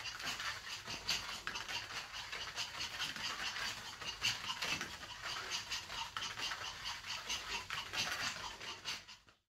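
Small dogs' feet pattering and scuffing on a play mat: many quick, light, irregular taps and scratches.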